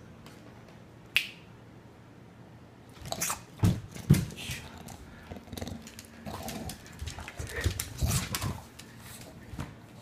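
Bulldog playing with a bath towel: a run of irregular snuffling, grunting noises and towel scuffling from about three seconds in until near the end, loudest in a few strong bursts. A single sharp click comes about a second in.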